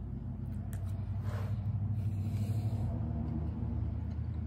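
Steady low rumble, with a brief soft hiss about a second and a half in.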